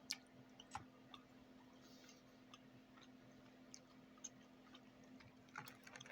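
Near silence with faint, irregular mouth clicks of someone chewing a crunchy, candy-coated jelly bean, over a steady low hum.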